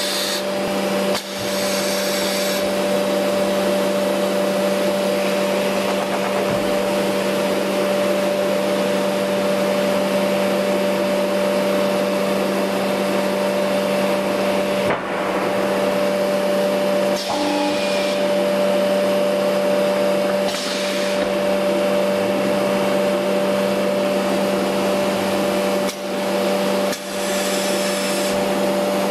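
The vacuum and pneumatic equipment of an auto-feeding CNC router running with a steady drone and constant hum while the suction-cup loader moves a sheet onto the table. A few short hisses of air are heard from time to time, typical of the suction cups gripping and releasing.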